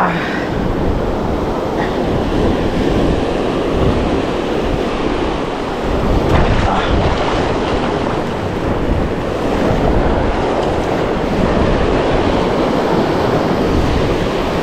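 Sea surf washing and breaking over shoreline rocks in a steady roar, with wind buffeting the microphone.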